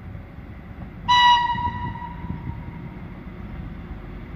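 FS D445 diesel locomotive sounding one short horn blast about a second in, a single steady tone that trails off over the next second or so, over a low rumble as the train approaches.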